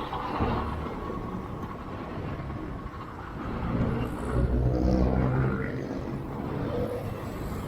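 Motor traffic on a city road heard during a motorcycle ride. An engine note rises in pitch and grows louder in the middle of the stretch as a vehicle accelerates, then drops back to the steady traffic noise.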